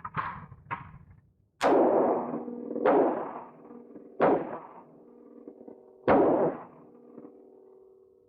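Four gunshots at an indoor firing range, spaced one to two seconds apart, each followed by an echoing tail, after a few light clicks at the start. A steady hum runs underneath.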